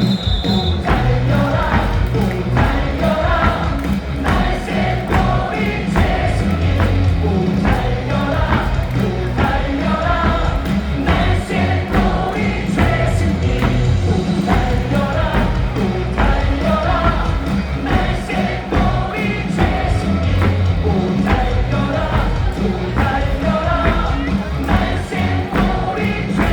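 Korean baseball crowd singing a batter's cheer song in unison over amplified cheer music with a steady beat.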